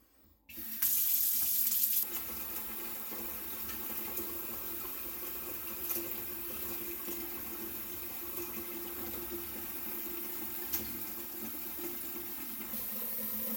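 Kitchen faucet running water into a cooking pot, filling it to about half full. The stream is loudest for the first second or so as it hits the pot, then runs steadily.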